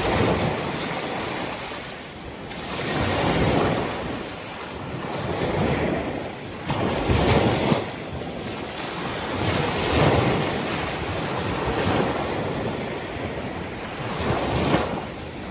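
Ocean waves breaking on the beach, the surf swelling and fading in repeated surges every three to four seconds.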